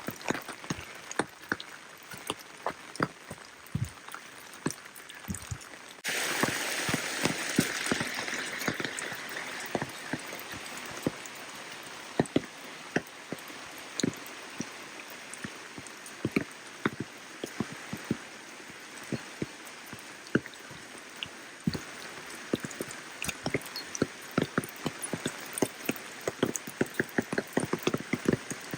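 Rain falling, with a steady hiss and many close, sharp drop ticks all through. About six seconds in, a louder rush of water noise comes in suddenly and eases off over the next few seconds.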